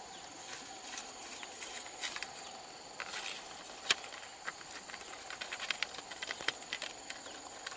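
Steady rain falling on a river and the plants along its bank: a soft, even hiss dotted with many irregular small drop ticks, over a steady high insect drone.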